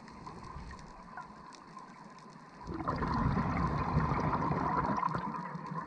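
Scuba diver's exhaled breath bubbling out of the regulator, a gurgling rush of bubbles starting about three seconds in and lasting about two and a half seconds. It is heard through a GoPro's underwater housing.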